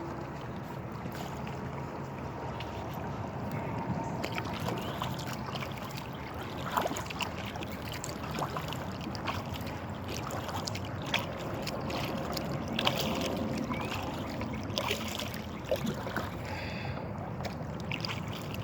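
Water splashing and trickling against a moving kayak's hull, with scattered light knocks and splashes.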